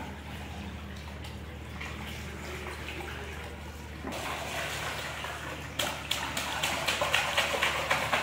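Water from a garden hose pouring into a shallow inflatable paddling pool. A child's hands and water balloons splash in the water, with the splashing getting louder and busier in the last couple of seconds.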